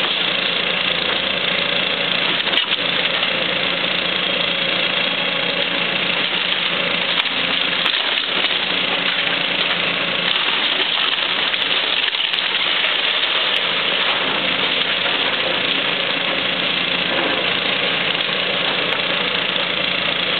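Caterpillar excavator's diesel engine running steadily, with a few sharp cracks of timber as its arm tears into the wooden house.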